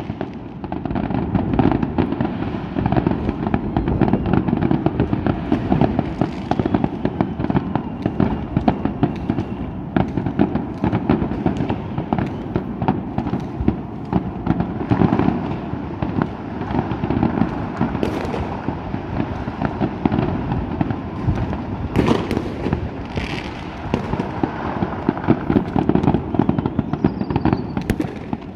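Many fireworks and firecrackers going off together: a continuous dense crackle of pops and bangs, with a few sharper, louder reports among them.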